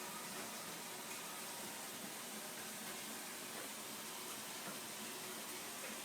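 Steady, even hiss of background noise with a faint hum, and no distinct sounds standing out.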